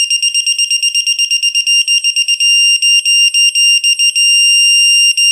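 Quinn electronic torque wrench's alarm beeping loudly and high-pitched, about eight quick beeps a second. About two seconds in the beeps lengthen, and near the end they merge into a steady tone, the wrench's signal that the bolt is at or past the set torque.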